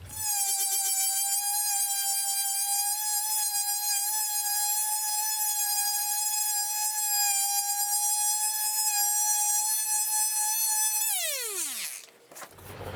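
Table saw motor running steadily with a high whine, spinning a plywood sanding disc mounted on the arbor in place of the blade. Near the end it is switched off and the whine falls steeply in pitch as the motor winds down.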